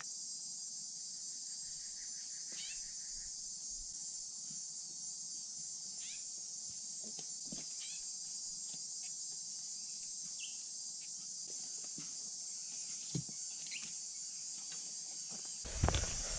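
Steady high-pitched insect chorus in the background, with a few short faint chirps and scattered faint ticks. A louder rustle starts near the end.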